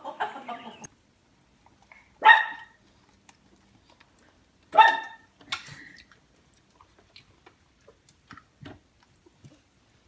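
A dog barking twice, about two and a half seconds apart, with a weaker call soon after the second and small knocks and clicks in between.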